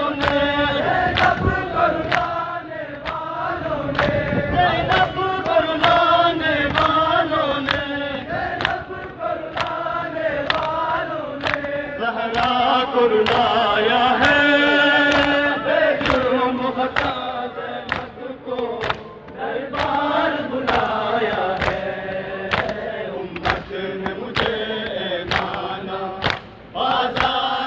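A crowd of men chanting a Muharram lament (nauha) together, kept in time by sharp rhythmic slaps of chest-beating (matam) about every three-quarters of a second.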